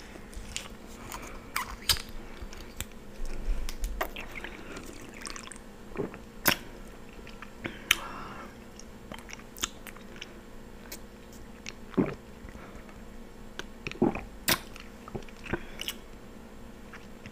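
Close-miked drinking from a plastic water bottle, with swallowing and wet mouth sounds, and irregular sharp clicks and crackles of the plastic bottle.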